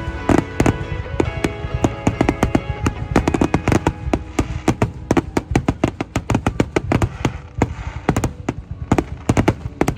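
Fireworks going off, many sharp bangs in quick succession, with music playing over them.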